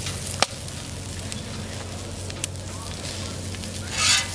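Onions, curry leaves, garlic and ginger sizzling and crackling in oil on a hot flat-top griddle, with a sharp pop about half a second in. Near the end a metal spatula scrapes across the griddle plate.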